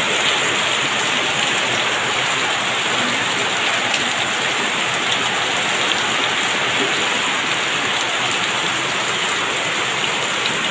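Heavy rain pouring down steadily, a dense, even hiss of drops with no let-up.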